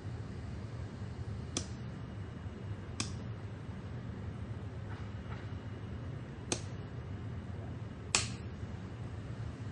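A power switch clicked on and off repeatedly: four sharp clicks at uneven spacing, with fainter clicks between, as a Wi-Fi LED bulb's power is cycled to reset it to factory settings. A steady low hum runs underneath.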